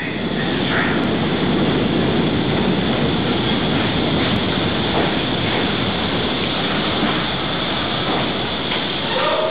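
R62A subway train of the 7 line pulling into an underground station: a loud, steady rumble of steel wheels on the rails, with a short rising squeal near the end.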